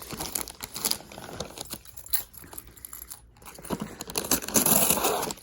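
A shipping package being opened by hand: irregular crinkling and tearing of the packaging, busiest near the end.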